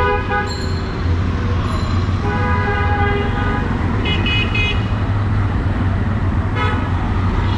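Busy street traffic with engines running, broken by several vehicle horn toots: a short one at the start, a longer one about two seconds in, a quick triple toot of a higher-pitched horn around four seconds, and a brief one near the end.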